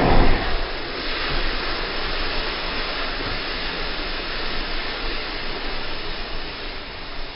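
Thousands of matchsticks flaring up together with a loud whoosh at the start, then the mass of burning matches rushing and hissing steadily, slowly dying down.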